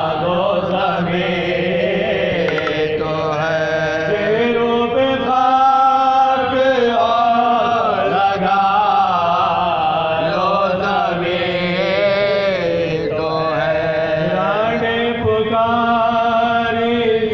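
Soz-khwani: a man chanting a Shia elegy (marsiya) in long, wavering melodic phrases, each held for several seconds before a short break.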